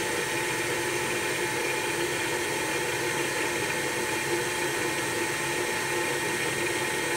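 Grizzly G0704 mini mill's belt-driven spindle and its VFD-driven motor running steadily at about 2300 rpm, with the drive set to 45 Hz. It makes a steady hum with a few held tones over an even hiss of air.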